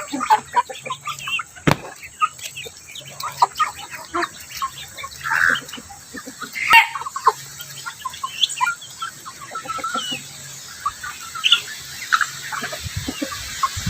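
Flock of free-ranging chickens clucking and calling in short scattered notes, with a couple of sharp knocks about two and seven seconds in.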